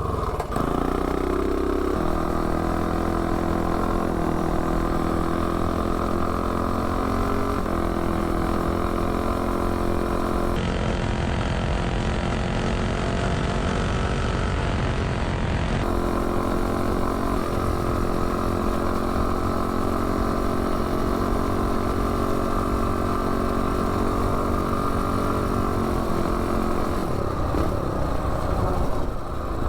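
Predator 212 single-cylinder four-stroke engine on a minibike running steadily at low revs, its pitch stepping slightly a few times with no hard revving.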